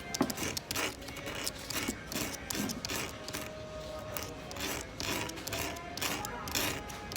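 Sandpaper rubbed in quick, irregular strokes against the end of a 0.040-inch orthodontic wire, grinding its corner to an angle so that it can be soldered to another wire.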